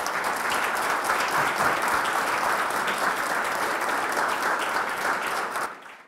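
Audience applauding steadily after a lecture; the applause drops away and cuts off abruptly just before the end.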